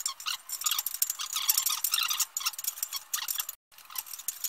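Chain-type exhaust pipe cutter worked back and forth around an exhaust pipe, its cutting wheels scoring the metal with a fast, irregular run of short metallic scrapes and clicks. The sound cuts out briefly about three and a half seconds in.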